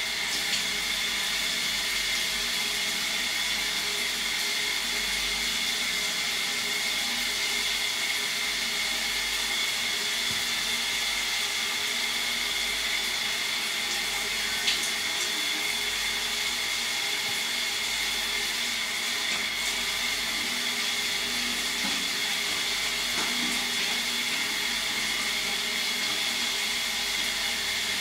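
Shower running in a small enclosed stall: a steady hiss of water spray that starts abruptly and holds even throughout, with one brief tap about halfway through.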